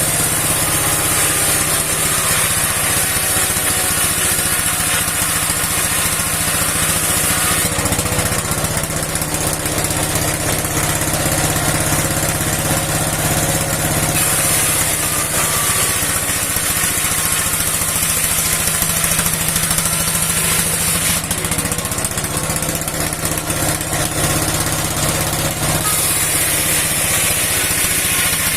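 A sixty-year-old engine running steadily, driving a steel saw used for ripping wood. A high hiss comes and goes for several seconds at a time over the engine sound.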